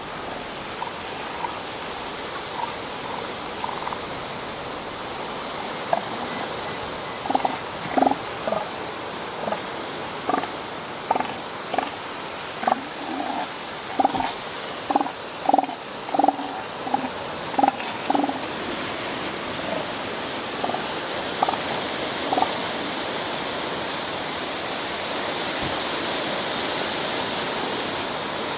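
Juvenile northern elephant seal giving a run of short, pitched pulsed calls, about one to two a second, over steady surf. The calls start a few seconds in and thin out past the middle, leaving the surf.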